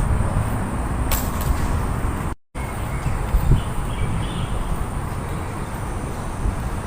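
Steady low background rumble with a faint click about a second in, broken by a brief moment of total silence about two and a half seconds in.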